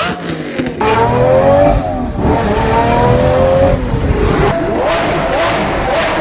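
Lamborghini supercar engines revving and accelerating in a few short clips one after another. The engine note climbs steadily in pitch, drops away about four seconds in, then rises again in the next clip.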